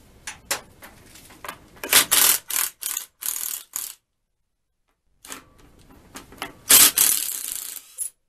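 Cordless impact driver spinning steel bolts out of a boiler's bolted access plate in short bursts, with metal clicks of the socket on the bolts; the loudest bursts come about two to four seconds in and again about seven seconds in.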